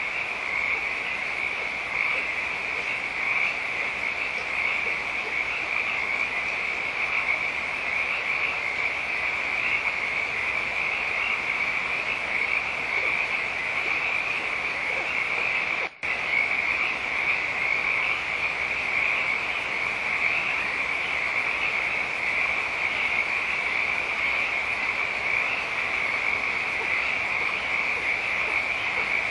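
Dense, steady chorus of calling animals, high-pitched and unbroken, that cuts out for a split second about halfway through.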